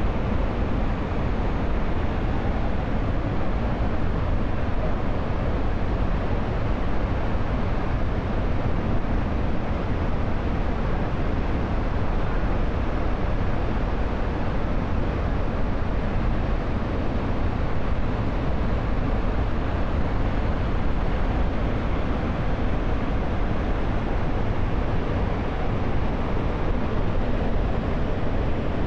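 Jog Falls in monsoon flow: a steady, unbroken rush of falling water, heaviest in the deep low end.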